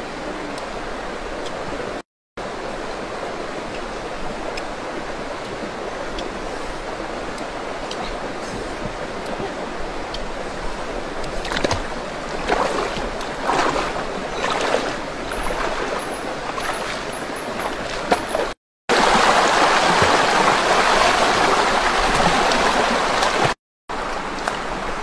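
Shallow rocky stream flowing steadily, with irregular splashing in the water around the middle. The sound drops out briefly a few times and is louder for a few seconds near the end.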